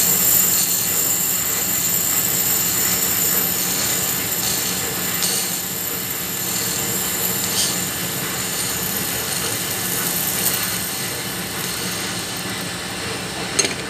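Ball bearing spun at very high speed by compressed air: a steady high-pitched whine over a broad air hiss, sounding like a jet engine. One sharp click just before the end.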